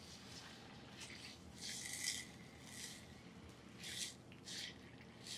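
Water poured from a plastic bottle into a vibratory tumbler bowl full of small metal tumbling media, splashing faintly in a few short spurts. It tops up the soapy water that lubricates the burnishing.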